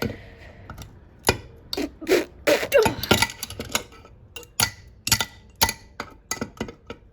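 Hand tools clinking and tapping against the metal parts of a two-stroke lawnmower engine as a screw is worked out: irregular sharp clicks, with a stretch of scraping about two to three seconds in.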